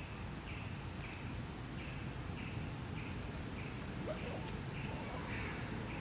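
Outdoor ambience: a short high chirp repeating evenly about every two-thirds of a second, over a low steady rumble.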